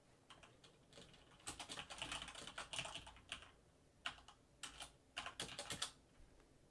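Typing on a backlit mechanical computer keyboard: a fast run of key clicks starting about a second and a half in and lasting some two seconds, then three short bursts of keystrokes.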